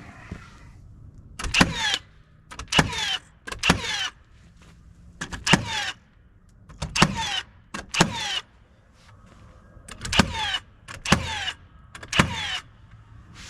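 Nails being driven into poplar siding boards: about nine sharp strikes, each followed by a short ring that falls in pitch.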